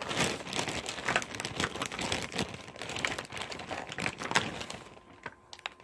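Rummaging through makeup containers and packaging: rustling and crinkling with many light clicks and knocks, dying down near the end.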